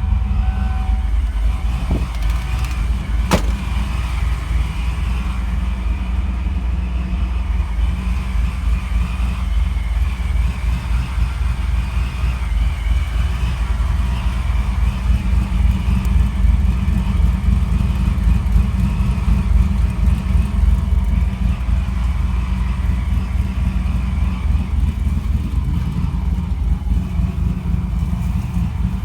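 Supercharged Ford F-150 pickup's engine running with a steady low rumble and a faint high whine above it. A single sharp click comes about three seconds in.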